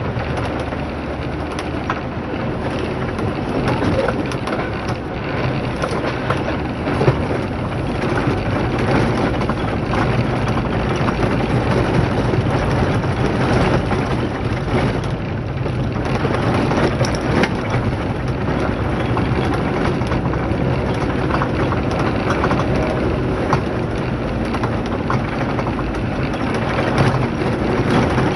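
A vehicle driving over a rough dirt and gravel track: tyres crunch and crackle over loose stones above a steady low engine hum, with one sharper knock about seven seconds in.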